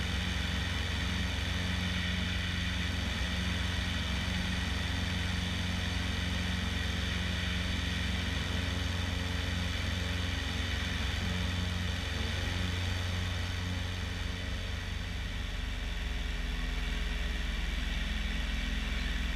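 The 1975 Bellanca Decathlon's 150 hp Lycoming engine and constant-speed propeller run at steady climb power, heard from outside the cabin, with a slight easing about two-thirds through.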